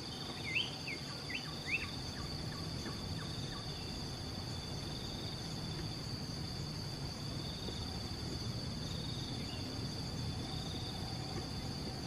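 Steady high-pitched insect chorus of crickets or cicadas, with a few short rising bird chirps in the first couple of seconds.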